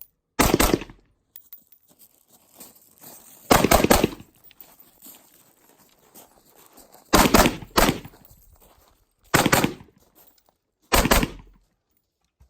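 STI DVC competition pistol fired in quick pairs of shots, about five groups a few seconds apart, as the shooter engages targets across a stage.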